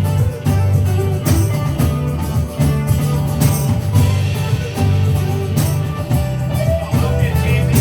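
Live band playing a song: guitar over a heavy bass line, with a steady drum beat.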